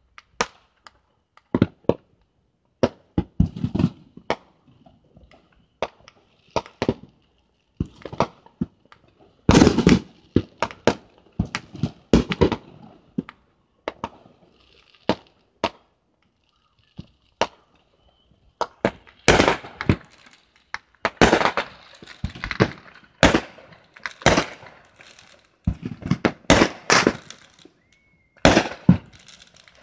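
Fireworks going off: irregular sharp bangs and pops, some single and some in rapid clusters, busiest about ten seconds in and over the last ten seconds.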